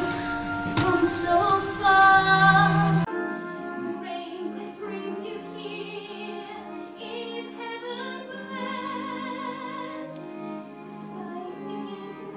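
A woman singing a slow musical-theatre ballad line with vibrato over instrumental accompaniment. About three seconds in it cuts abruptly to another recording of a woman singing the same line, thinner and quieter, with no bass.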